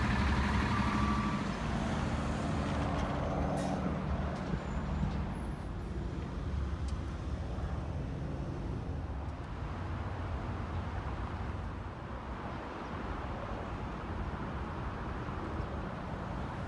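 2020 Audi S6's 2.9-litre twin-turbo V6 idling steadily through its sport exhaust, a low even hum that is a little louder in the first few seconds.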